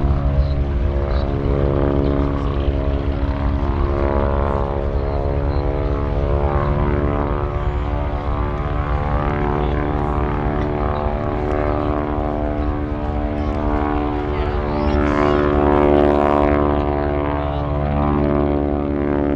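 Boeing Stearman biplane's radial engine and propeller droning steadily in display flight, the pitch drifting a little as the aircraft manoeuvres. The sound grows louder about three-quarters of the way through, then eases.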